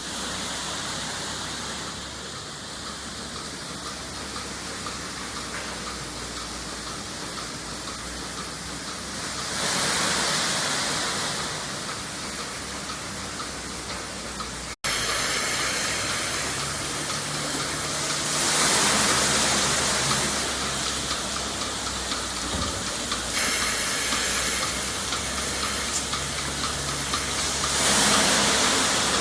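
Rotary milking parlor machinery running: a steady hissing, rushing noise that swells louder for a couple of seconds about every nine seconds.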